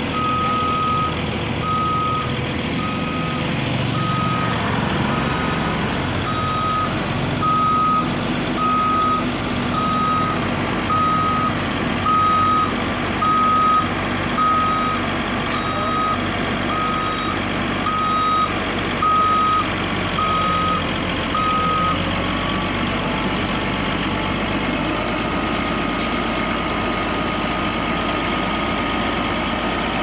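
Heavy-vehicle warning alarm beeping steadily, about once a second, over a diesel engine running; the beeping stops near the end while the engine keeps running. Most likely the motion alarm of a rough-terrain crane swinging a suspended steel shutter panel.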